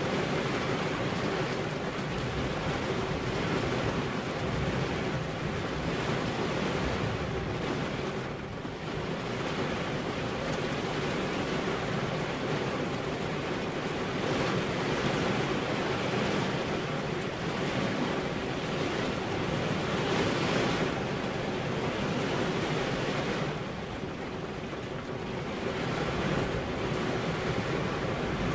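Heavy rain falling steadily, an even hiss that eases off briefly twice.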